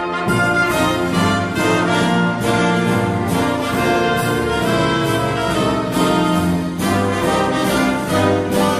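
Orchestral background music led by brass, with a steady beat.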